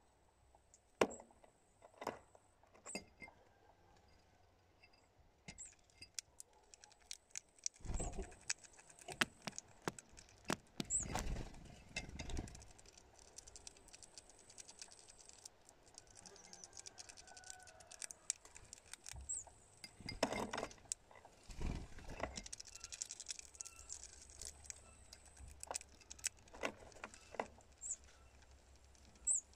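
Irregular light clicking and tapping of a bird's claws and beak on glass jars and stone close to the microphone, with a few dull thumps and some short, very high peeps.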